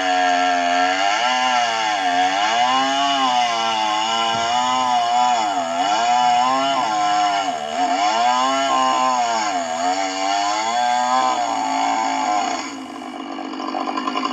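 Stihl 660 two-stroke chainsaw running at full throttle in a chainsaw mill, ripping a blue gum log lengthways with a 36-inch bar. Its pitch rises and falls as the cut loads the engine. Near the end the throttle is let off and the engine drops to a lower, quieter note.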